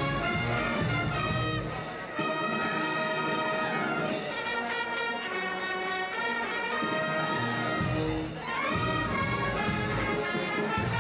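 Street wind band of brass and clarinets playing in full harmony. The deep bass parts drop out for several seconds in the middle and come back near the end.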